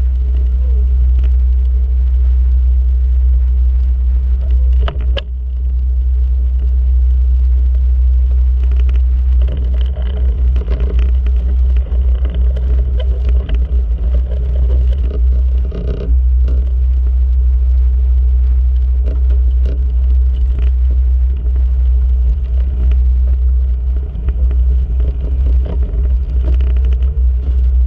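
Wind buffeting the microphone on a sailboat under way: a loud, steady low rumble with uneven gusty dips and a few faint scrapes and ticks.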